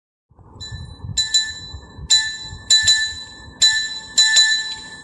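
Bell-like glass chime from a song's backing-track intro, struck in a repeating pattern, some strikes in quick pairs. Each strike leaves a clear ringing tone, over a soft low pulse.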